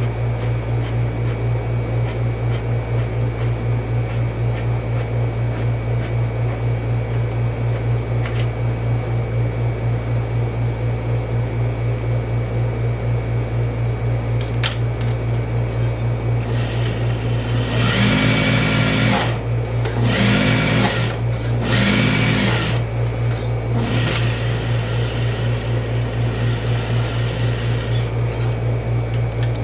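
Juki industrial single-needle sewing machine stitching in several short runs of about a second each, starting just past the middle, over a steady low hum.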